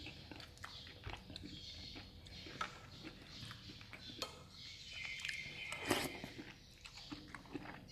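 Faint eating sounds: chewing, with small clicks of a metal spoon against a ceramic soup bowl and a louder knock about six seconds in.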